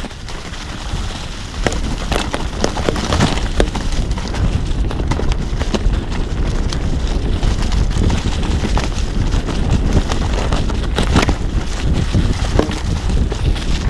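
Wind rushing over the microphone and the wide 29+ tyres of a Trek Stache 5 mountain bike rolling fast over dry leaves and dirt, with frequent clicks and rattles from the bike over bumps. It gets louder about two seconds in as the bike picks up speed.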